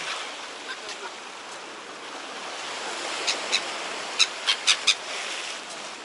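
Baltic Sea surf washing steadily on the shore, with a quick run of six short, sharp seagull calls between about three and five seconds in.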